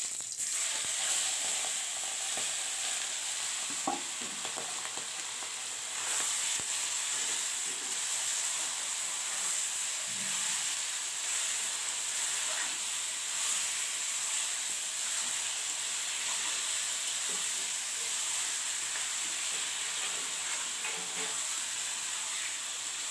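Marinated chicken sizzling in hot oil in an iron kadai. The sizzle sets in loud as the chicken goes into the pan and keeps up steadily, with a wooden spatula stirring and scraping now and then.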